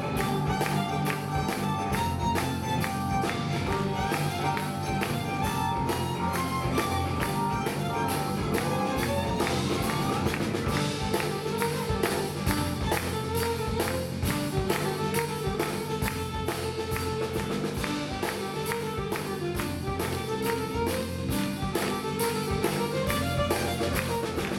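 Live band playing a fiddle tune: the fiddle carries the melody over a steady drum-kit beat, bass guitar and keyboard.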